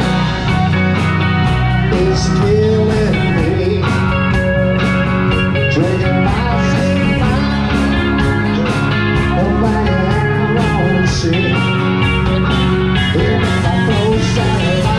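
Live rock band playing: electric guitars over a drum kit, with a steady beat of drum and cymbal hits.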